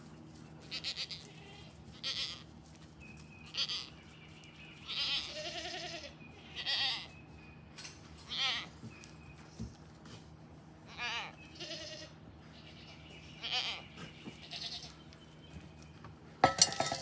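Goats bleating, about a dozen separate short calls one after another. A loud sharp clatter near the end.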